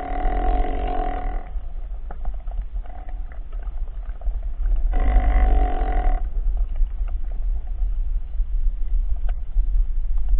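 Muffled underwater ambience: a steady low rumble with scattered clicks, and two drawn-out droning tones, each about a second long, one at the start and one about five seconds in.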